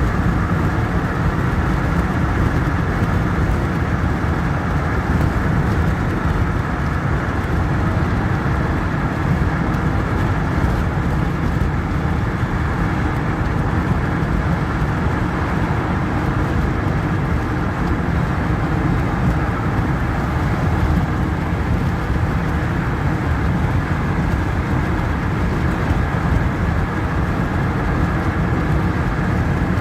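Steady rumble of a car driving at an even speed: road and engine noise, strongest in the low bass, with no changes or distinct events.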